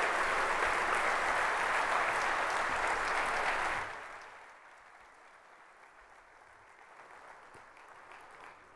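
A large seated audience applauding. The applause drops away sharply about four seconds in, leaving faint scattered clapping and room noise.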